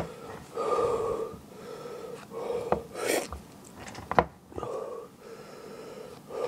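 A man breathing hard in and out through his open mouth, a heavy breath about every second or so, from the burn of a superhot Brain Strain chili pepper he has just eaten. A short sharp sound comes about four seconds in.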